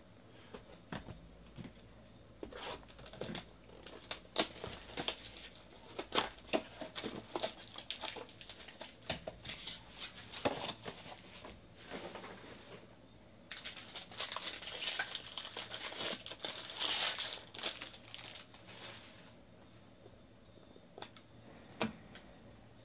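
Foil wrapper of a trading-card pack crinkling and tearing as it is opened by hand, in many small crackles that grow densest in the second half before going quiet. A single click near the end.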